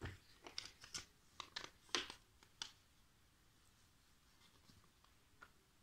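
Faint, quick plastic clicks of Lego bricks being handled and pressed together, about ten in the first three seconds, with a couple of softer ticks later.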